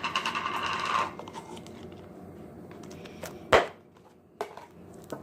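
Slime being squished and worked in the hands, with a rapid run of crackling clicks for about the first second and then quieter handling. A single sharp, loud click comes about three and a half seconds in, with a few smaller clicks near the end.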